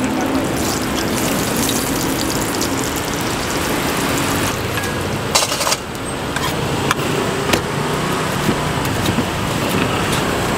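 Steady noise of road traffic passing close to a street-food stall, with a few sharp clicks and knocks of utensils on the stall's metal counter and wooden board, the loudest about halfway through.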